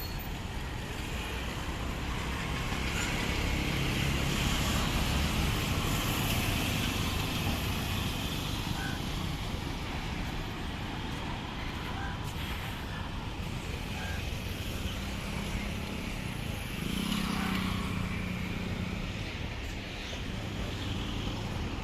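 Steady city road traffic: car and truck engines running and tyres on the road, swelling louder twice as heavier vehicles pass.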